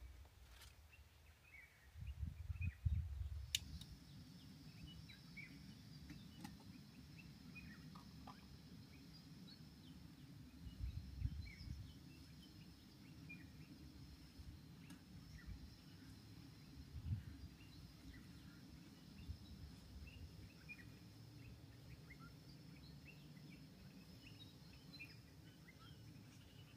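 Faint, scattered chirps of small birds over a steady low rumble and a thin high hum, with a few louder knocks near the start, around the middle and about two-thirds of the way through.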